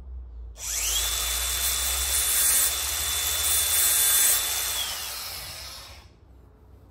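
Angle grinder spinning up with a rising high whine and grinding against the steel teeth of a hedge trimmer blade with a loud, steady rasping hiss: the blade is being sharpened. The motor winds down about five seconds in.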